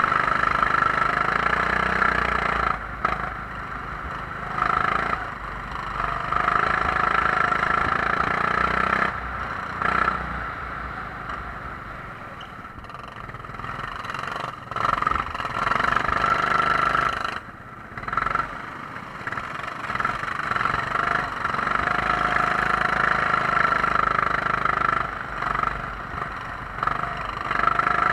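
Onboard sound of a racing kart's engine running hard, its note dropping away several times as the throttle is lifted for corners and picking up again on the straights.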